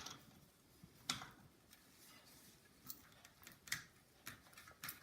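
A few light clicks and ticks of metal on metal while a new bicycle spoke is fitted and tightened, the loudest about a second in.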